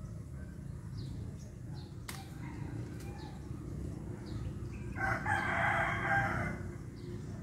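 A rooster crowing once, a call of about a second and a half that starts about five seconds in and is the loudest sound here. A single sharp click comes about two seconds in, and faint high chirps repeat throughout.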